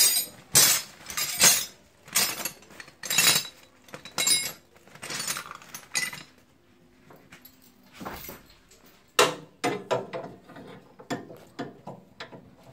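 Woven plastic sack rustling and crinkling in a series of loud swishes over the first six seconds, then a quieter spell and a run of sharp clicks and clinks.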